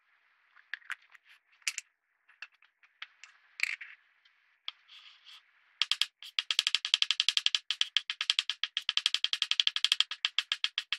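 Close-up sounds of a Lush bath product being cut and handled: scattered small scrapes and crackles, then from about six seconds in a fast, steady run of clicks.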